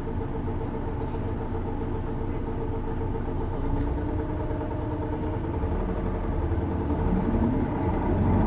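Isuzu Erga city bus's six-cylinder diesel engine heard from inside the cabin, running steadily, then rising in pitch and getting louder near the end as the bus pulls harder. This engine is known for a distinctive odd noise, a trait seen in other PKG-series Ergas, especially automatics.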